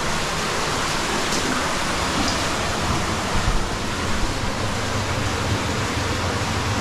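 Steady rush of flowing water echoing in a cave, with a few low knocks about three and a half seconds in.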